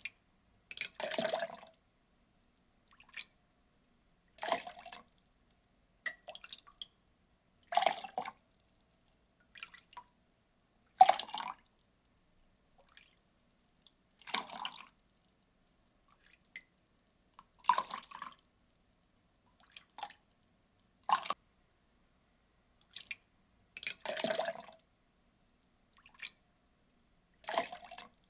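Water poured in short splashing bursts, about nine of them, each under a second long and coming roughly every three seconds, with faint drips between.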